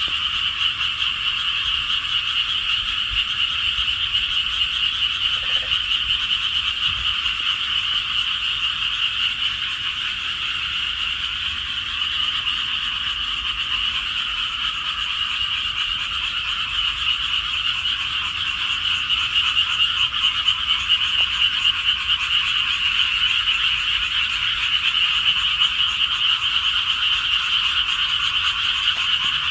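A dense chorus of many frogs calling at once, a continuous overlapping trill that grows a little louder about two-thirds of the way through.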